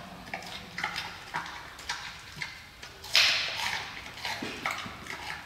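Giant panda chewing carrot, crisp crunching bites a couple of times a second, with one louder rustling scrape about three seconds in.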